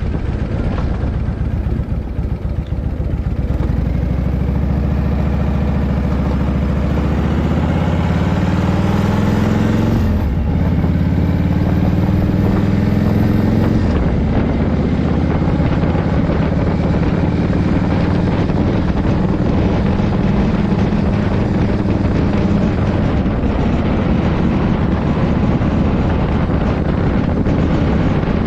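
Harley-Davidson Shovelhead V-twin engine, freshly rebuilt top end, pulling hard under way: the engine note climbs for several seconds, drops sharply at a gear change about ten seconds in, climbs again, shifts once more a few seconds later, then settles into a steady cruise.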